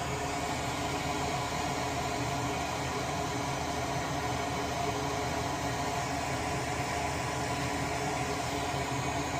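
A small fan running steadily: an even whir with a constant hum underneath.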